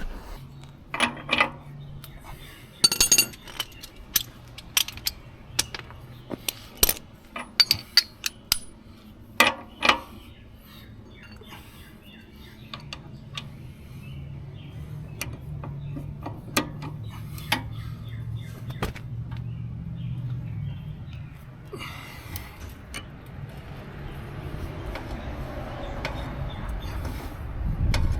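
Irregular metal clinks and clicks of a socket and wrench being fitted and worked on a motorcycle's rear axle nut, thickest in the first ten seconds, then a quieter stretch over a steady low hum.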